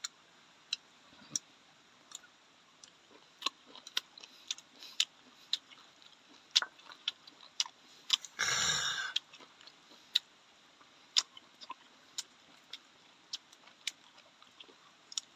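Faint, irregular mouth clicks and smacks of someone chewing food, with one short breathy noise about a second long partway through.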